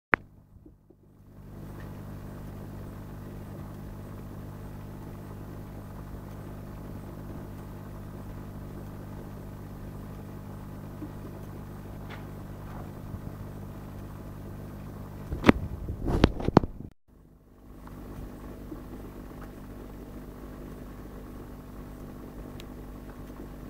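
Steady low electric hum of an aquarium pump. About two-thirds of the way in there are a few loud knocks or clicks, then the sound drops out for a moment before the hum comes back.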